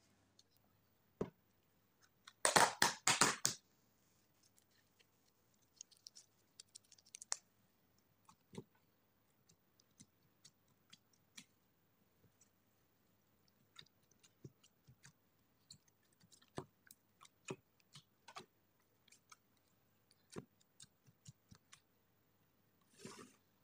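A thin plastic takeaway tub's lid is pulled off with a burst of plastic crackling about two and a half seconds in. Then gloved fingers poke and press the set, jelly-like water slime inside, giving scattered small clicks and squishes, with another short rustle near the end.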